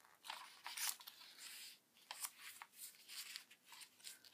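Faint paper rustling as the pages and tags of a handmade junk journal are turned and handled, in short, irregular brushes of paper.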